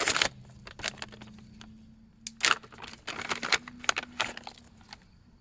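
Handling noise of a small item being turned over in the hands: a few sharp rustles and clicks, one right at the start and a cluster around the middle.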